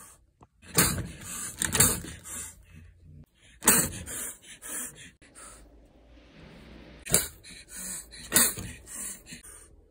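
Feral tabby kitten hissing and spitting: about five sharp, sudden spits with a softer, longer hiss in between. It is the defensive warning of a frightened kitten.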